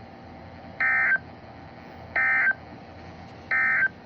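Emergency Alert System end-of-message signal: three short, identical bursts of buzzy digital data tones (the SAME "NNNN" code), evenly spaced a little over a second apart, marking the end of the alert broadcast.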